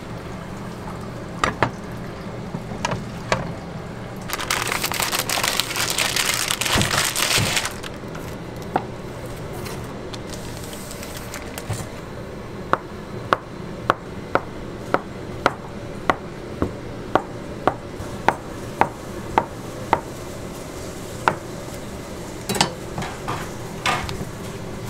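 Kitchen knife slicing a sausage into rounds on a cutting board, each cut ending in a sharp knock on the board, a steady rhythm of about two a second. Before the chopping a loud hiss runs for about three seconds, and near the end a few clinks come as the slices are gathered into a stainless steel bowl.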